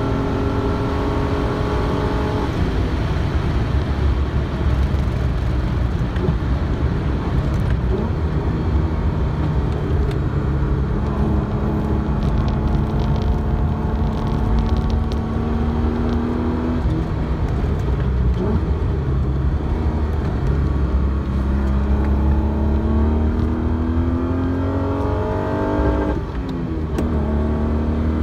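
Alfa Romeo GTV6's Busso V6 engine heard from inside the cabin at track pace, pulling hard with its pitch climbing through the revs and dropping back at each gear change, over steady road and wind noise. Near the end the note dips briefly as the throttle is lifted, then rises again.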